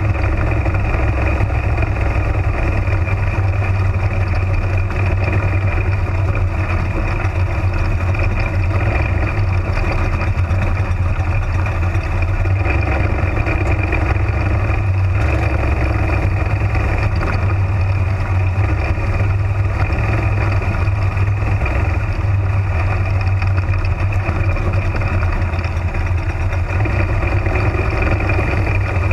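Small race car engine of a Spec Modified (slingshot) running hard through racing laps, a loud, steady drone heard from inside the open cockpit.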